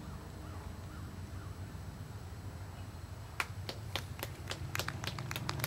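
A few people clapping: sparse, irregular hand claps start a little past halfway and grow denser, over a low steady background rumble.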